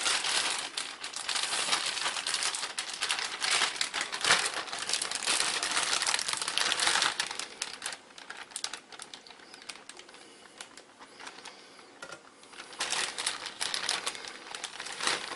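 Plastic food bag crinkling and rustling as it is handled. The crinkling is dense for the first half, quieter for a few seconds, then comes in again shortly before the end.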